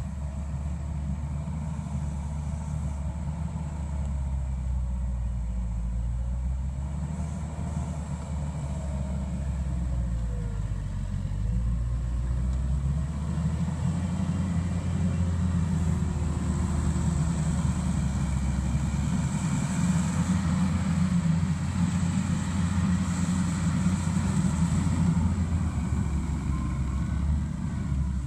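Mustang MTL325 compact track loader's diesel engine running steadily under load while it pushes dirt, its pitch shifting a little around ten seconds in. It gets louder from about halfway through as the machine comes close.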